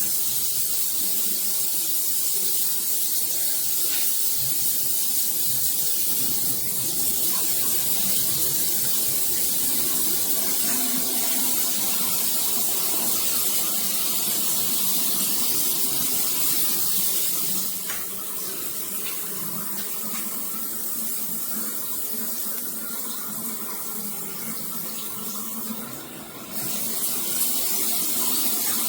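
Water spraying from a dual rain shower system with a handheld head: a steady hiss of running water. It drops a little about 18 seconds in, dips briefly about 26 seconds in, and comes back stronger.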